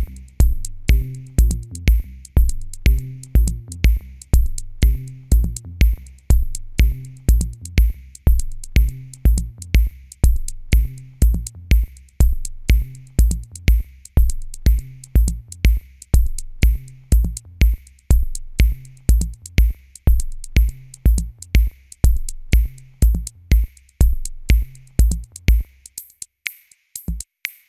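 Electronic music with a steady drum-machine beat and a bass line. Near the end the bass line drops out, leaving only a few drum hits.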